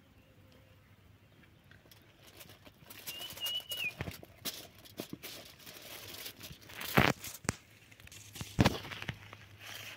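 Hands handling a marinated whole chicken on a banana leaf: leaf rustling and crinkling, with two sharp knocks about seven and eight and a half seconds in. A bird gives one short whistled call, dipping at the end, about three seconds in.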